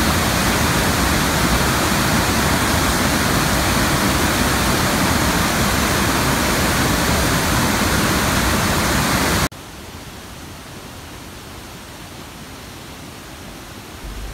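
Iguaçu Falls, the steady loud rush of a huge waterfall. About two-thirds of the way through it drops suddenly to a much quieter rush of water.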